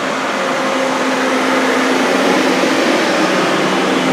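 Steady machine hum and whir: a low tone over an even fan-like rush, growing slightly louder.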